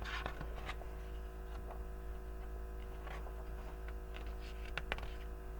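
A picture book's pages being handled: a few faint rustles and soft clicks, over a steady low electrical hum.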